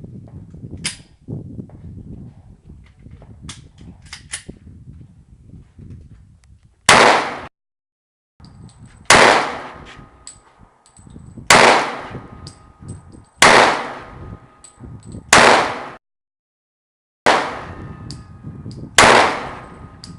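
Glock 27 .40 S&W subcompact pistol fired seven times in slow succession, about one shot every two seconds, starting about seven seconds in. A few faint clicks come before the first shot.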